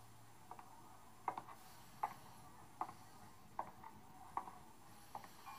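Faint, slow, evenly paced footsteps: about seven steps, each a short knock, a little under a second apart.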